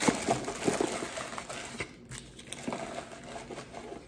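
A clear plastic wrapper crinkling and a cardboard box being handled, loudest in the first second, then lighter rustles and taps.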